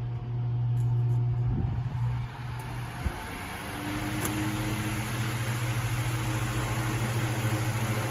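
Suiden SF-45MV-1V industrial floor fan running: a steady motor hum, a click about three seconds in, then the rush of air builds and holds steady as the blades speed up.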